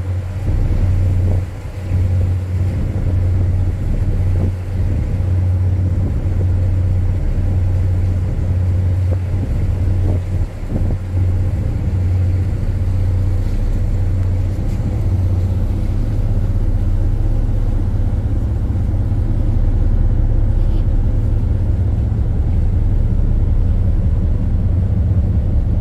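Ship's machinery running with a steady low drone, heard on the open deck.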